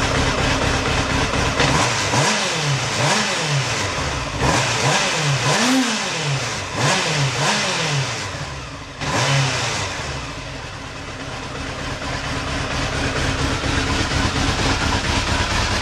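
Freshly rebuilt Honda CBR1000F inline-four motorcycle engine running just after starting: the throttle is blipped about six times in quick succession, revs rising and falling, then it settles to a steady idle.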